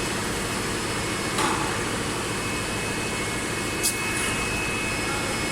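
Steady hum and hiss of a plastic injection moulding machine running during a mould trial. There is a brief hiss about a second and a half in and a sharp click about four seconds in.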